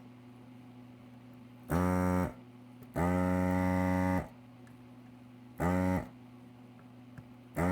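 Four loud, sustained, buzzy notes at the same pitch, each starting and stopping abruptly, the second held longest at over a second. A steady low hum runs underneath.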